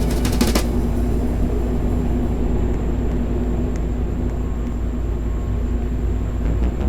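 A steady low mechanical hum and rumble, opening with a quick run of clicks in the first half second.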